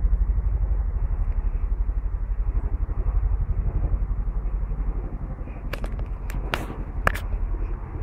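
Low, rapidly pulsing rumble of wind buffeting a phone's microphone, with a few sharp clicks about six to seven seconds in.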